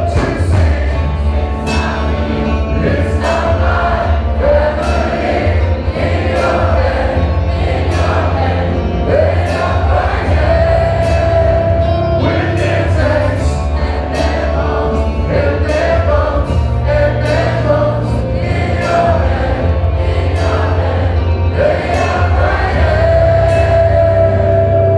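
Rock band playing live: a singer over guitars, bass and drums, loud throughout, with heavy, booming bass.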